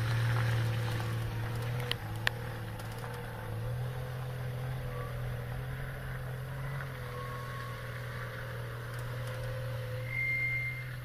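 Off-road 4x4 vehicle engine running steadily, with two sharp clicks about two seconds in and a short high whistle near the end.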